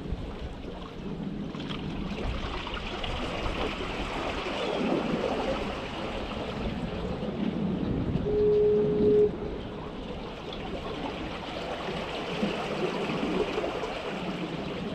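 Seawater washing and gurgling among shoreline rocks, with surf behind. A single loud steady tone sounds for about a second just past halfway through.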